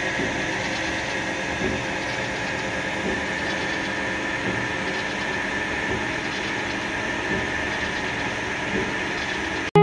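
Metal lathe running slowly in low gear with the automatic feed engaged while a single knurling wheel is pressed into a turning metal bar: a steady mechanical whirring with a faint steady whine. It cuts off suddenly at the very end.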